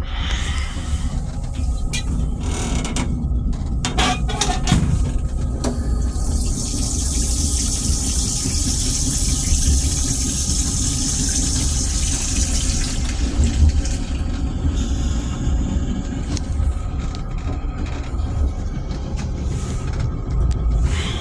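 Metro-North M3 railcar toilet flushing: a few clicks and knocks of the flush mechanism, then a hissing rush of rinse water for about seven seconds as the stainless-steel bowl empties. Under it runs the steady rumble of the railcar.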